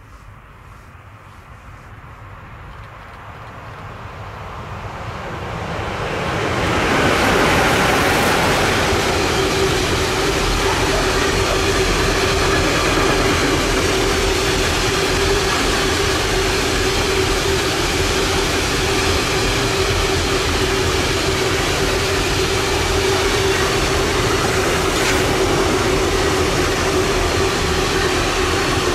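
Train passing close by: its noise builds over the first several seconds, then the passage runs loud and steady for over twenty seconds, with a constant hum over the noise of wheels on rails.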